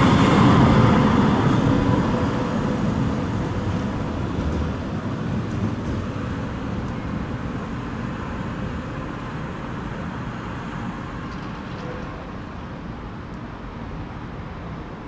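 Tram running away along the track, its rumble and a faint steady whine fading steadily as it goes.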